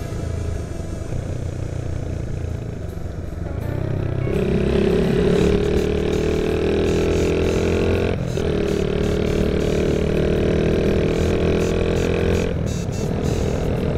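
Honda Monkey 110's single-cylinder four-stroke engine pulling under throttle while riding. Its pitch climbs from about four seconds in, dips briefly at a gear change about eight seconds in, climbs again, and eases off near the end.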